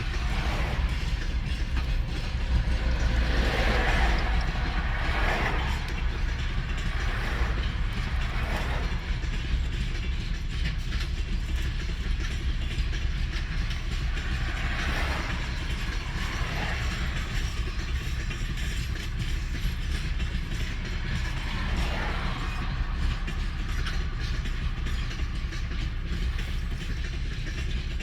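Freight train rolling past: a steady low rumble of wheels on rails, with several louder swells of clatter every few seconds.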